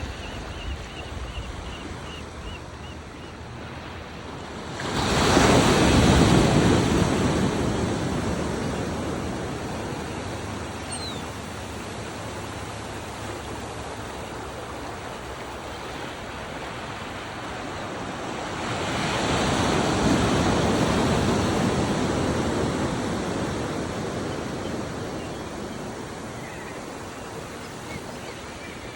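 Ocean surf: waves breaking about five seconds in and again about nineteen seconds in, each surging loud and then slowly fading back into a steady wash of water.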